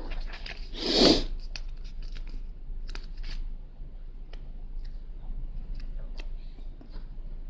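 Small plastic clicks and light rustling from Lego pieces and a sticker sheet being handled, with one short, louder rustling burst about a second in.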